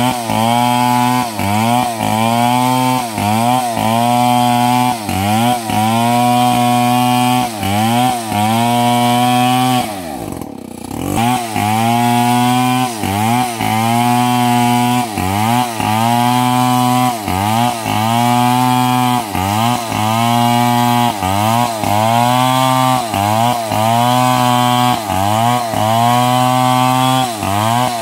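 STIHL MS 070 two-stroke chainsaw ripping a log lengthwise at full throttle. Its engine note dips and recovers about once or twice a second as the bar bites into the wood. About ten seconds in the engine falls away for a moment, then revs back up into the cut.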